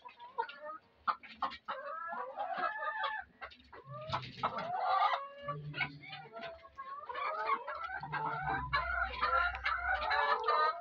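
A flock of free-range laying hens clucking, many short calls overlapping all the way through.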